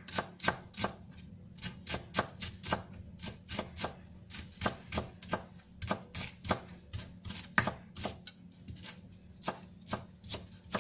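Knife chopping fresh celery, a quick, slightly uneven run of sharp strokes at about three a second.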